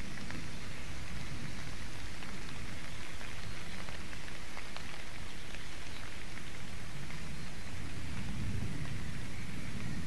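Steady hiss of wind through the forest canopy, with a low wind rumble on the nest camera's microphone that swells near the end, and a few faint clicks.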